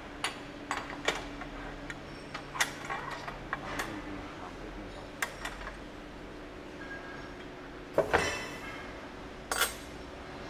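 Metal clinks and knocks as a steel welding mold and its fixings are handled and bolted down on a steel machine table, a sharper clank about eight seconds in the loudest. A faint steady machine hum runs underneath.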